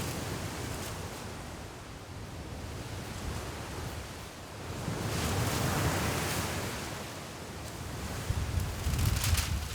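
Waves washing onto the shore in a strong wind, one surge swelling about halfway through, with gusts buffeting the microphone toward the end.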